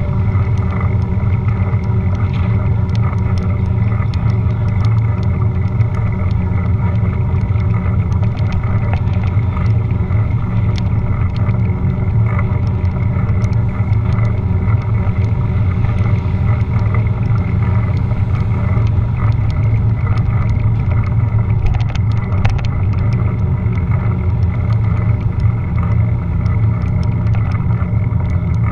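Steady low rumble of wind and road noise picked up by a GoPro Hero 4 Silver on a moving bicycle, with scattered faint clicks and rattles.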